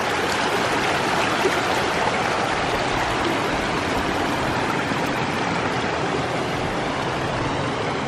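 A small waterfall and mountain creek rushing steadily over rocks.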